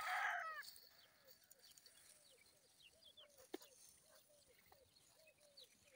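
A rooster's crow ending about half a second in. After it come faint short calls, repeated about three times a second, and a few faint clicks.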